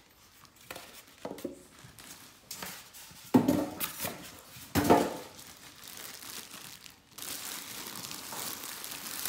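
Packing materials being handled: styrofoam blocks are moved about, with two louder sudden rubs or knocks near the middle. From about seven seconds in, a plastic wrap crinkles steadily around the air purifier.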